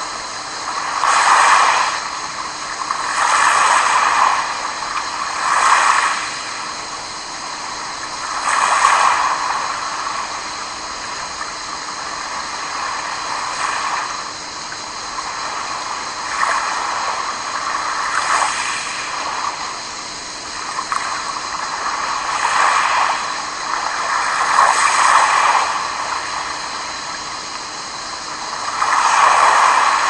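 Small waves lapping onto a pebble beach, each wash a soft swell of hiss that comes and goes every two to four seconds over a steady background of sea noise.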